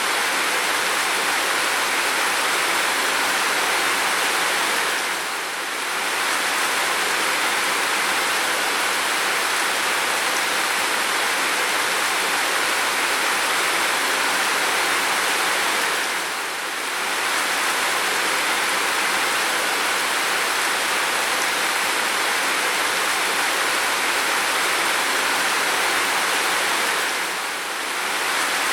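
Heavy rain falling steadily, a dense even hiss that dips slightly about every eleven seconds.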